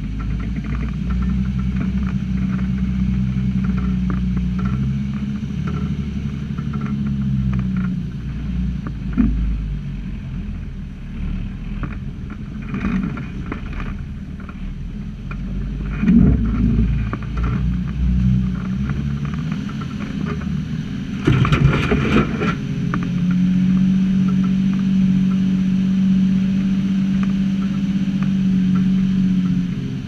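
Nissan GQ Patrol 4WD engine running as the vehicle works along a rough sandy track, its note rising and falling with the throttle. A few single knocks from the body, and a short burst of rattling and clatter about two-thirds of the way in.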